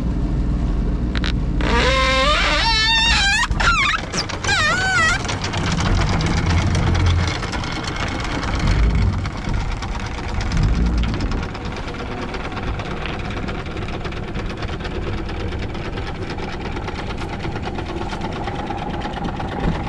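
Boat motor running steadily under load, with wind on the microphone, as the boat is pushed off a shoal against the tide. Between about two and five seconds in, a wavering high-pitched sound rises over it.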